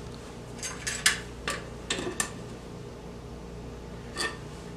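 A few short, light metal clicks and clinks from handling a measuring tool against a wooden board while taking a thickness reading, most of them in the first two seconds and one more near the end, over a steady low hum.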